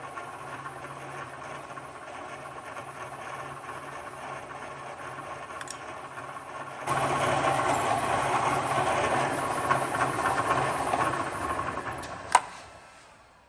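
A machine drill running with a steady motor hum. About seven seconds in, the bit cuts into the metal wheel and the sound gets much louder for about five seconds. Near the end there is a sharp click and the motor winds down.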